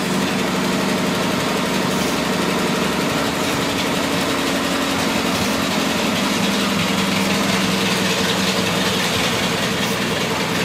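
1953 Chevrolet truck's inline-six engine idling steadily with the hood open.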